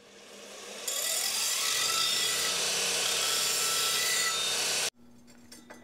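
Bench belt grinder spinning up with a rising whine, then grinding a stainless steel exhaust tube held against the abrasive belt, a loud, even rasping hiss from about a second in. It cuts off abruptly near the end, leaving a faint steady hum.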